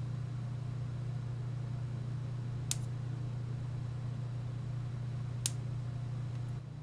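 Steady low buzz from an electric fly swatter's high-voltage supply charging a 100 pF capacitor to 2.7 kV, stopping shortly before the end. Two sharp spark snaps, about three and five and a half seconds in, as the charge discharges into the UNI-T UT90A multimeter, which the discharge damages.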